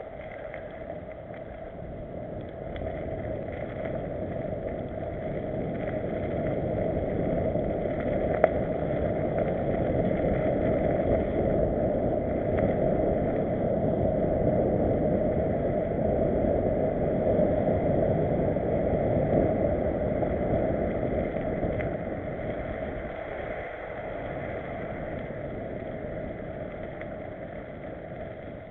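Wind buffeting the microphone of a bike-mounted camera, together with the rumble and rattle of a mountain bike rolling fast over a dirt forest trail. It grows louder through the middle and then eases off, with one sharp knock about eight seconds in.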